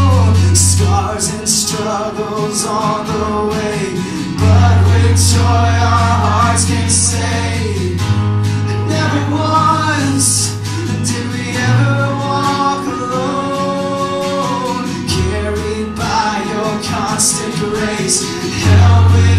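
Live worship band playing a slow song, with guitar, long held bass notes and singing voices.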